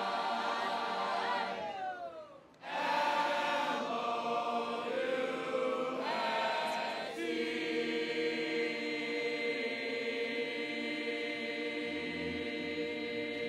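A group of young men singing together without accompaniment, arms linked, with a short break about two and a half seconds in, ending on a long held chord.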